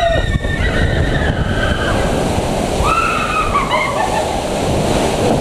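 Rush of water and heavy splashing as a log-flume boat plunges down the drop and hits the water, with spray over the camera. A rider yells about three seconds in.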